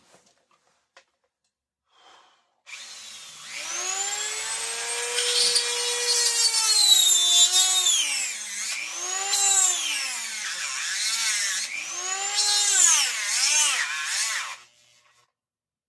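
Dremel rotary tool running with a very dull bit, its whine repeatedly sagging in pitch and climbing back as it bogs under load. It starts about three seconds in and cuts off about a second before the end.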